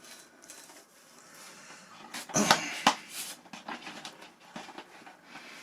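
Handling noise from an unboxed foam RC model kit: rustling and a few sharp plastic clacks as parts are picked up and moved, loudest between about two and three and a half seconds in.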